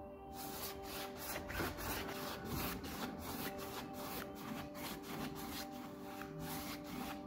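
Rapid, evenly repeated rubbing strokes, about three a second, with the steady held notes of background music underneath.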